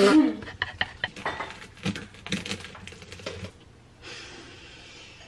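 An irregular run of sharp clicks and light knocks from things being handled in a kitchen, then a soft hiss lasting about a second, starting about four seconds in.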